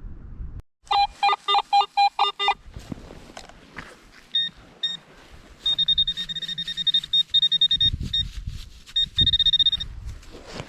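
Metal detector beeping over a target: a quick run of about seven lower-pitched beeps, then a higher-pitched beep that pulses and at times holds for a few seconds. Soft scrapes and knocks come between the beeps.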